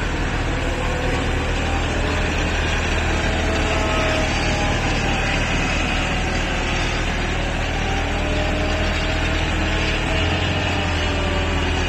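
6.5-tonne excavator's diesel engine running steadily with a forestry mulcher head attached, a whine over it that slowly rises and falls in pitch.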